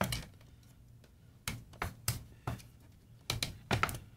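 Scattered sharp clicks and light knocks from handling an Alpine car CD changer, its plastic housing and metal mechanism, as its retaining clips are pushed in. There are a few clicks near the start, then an irregular series of a dozen or so through the second half.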